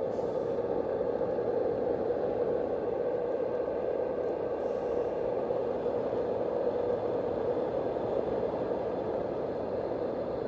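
Fan-based white noise machine running at a steady level: an even rushing of air from its spinning fan, with no pitch to it.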